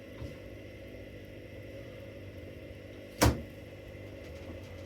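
Washing machines running a wash programme with a steady mechanical hum, and one sharp knock about three seconds in.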